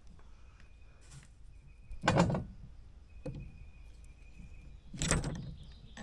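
Two metal clunks, about three seconds apart, from the backhoe's power steering motor being worked apart by hand, its shaft and loose internal parts sliding and knocking inside the housing.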